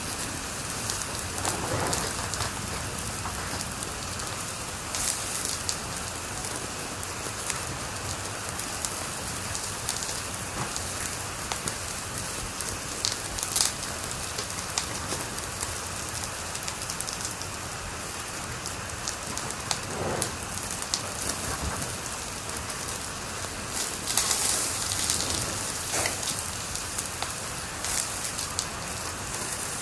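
Wood fire crackling in a fireplace: a steady hiss dotted with small pops, a sharper pop about halfway through and a brief flurry of crackles near the end.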